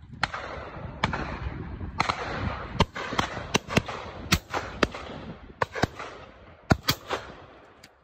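Shotguns firing at driven pheasants: a rapid, irregular volley of more than a dozen shots over about seven seconds, some only a fraction of a second apart, each leaving an echo. The loudest shots come near the end.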